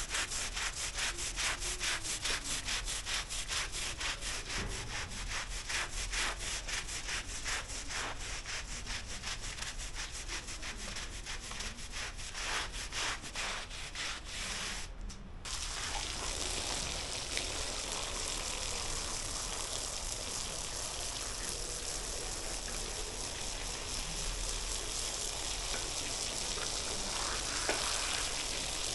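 Stiff push brush scrubbing a wet, soapy rug in quick, even back-and-forth strokes. About halfway through, the scrubbing cuts off and a steady hiss takes its place.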